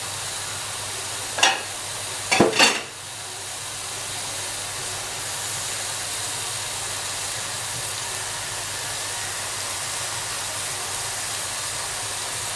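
Pieces of lamb sizzling with a steady hiss in a hot aluminium pot, seared without oil so that their own fat renders out. Two brief knocks come in the first three seconds.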